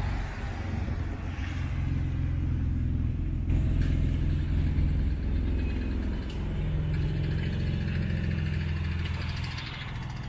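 Road traffic with a vehicle engine running steadily close by.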